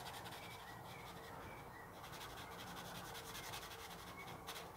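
Pen drawing on sketchbook paper: faint rubbing strokes of the nib across the page.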